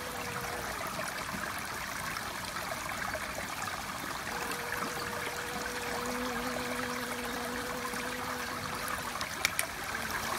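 Steady rush of running water, like a stream, with a faint steady hum that comes in about four seconds in and a couple of light clicks near the end.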